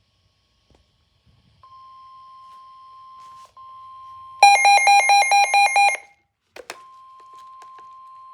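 NOAA Weather Radio warning alert tone: a steady tone of about 1 kHz that starts about a second and a half in and holds. For about a second and a half in the middle, a much louder electronic alarm beeps rapidly over it, then a couple of clicks follow.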